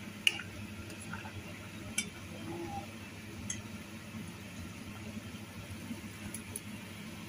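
A metal ladle clinking a few times against a stainless steel pot of boiling pork broth, the loudest clink just after the start, over the steady low bubbling of the boil.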